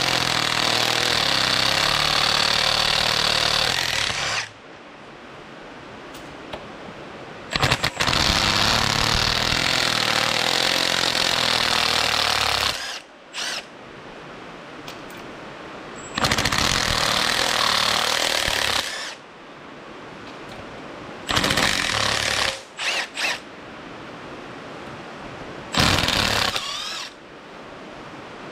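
Cordless Milwaukee Fuel brushless impact wrench hammering in about five runs of one to five seconds each, with a few short blips between them, as it backs out the rusty hub flange bolts on a Willys CJ-5's Dana 25 front axle hub. The bursts are kept short so as not to snap the old bolts.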